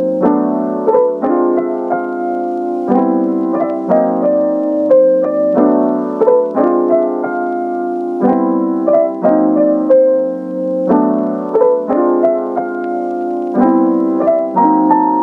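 Background music: a gentle, mellow electric-piano-style keyboard melody over sustained chords.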